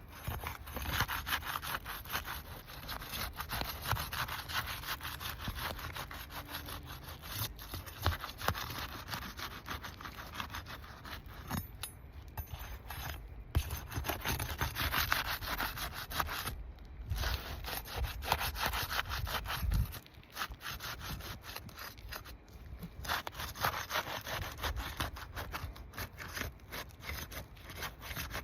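Asphalt hip-cap shingles being worked loose: a long run of rough scraping and rubbing strokes as the brittle shingles are pried apart, with a few brief pauses.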